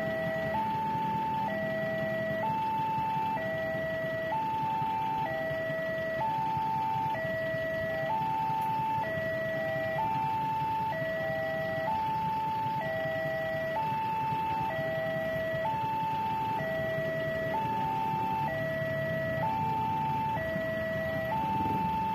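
Railway level-crossing warning alarm sounding from the crossing's loudspeaker: a slow electronic two-tone alternation, high then low, about one pair every two seconds, signalling an approaching train. A low, steady rumble runs underneath.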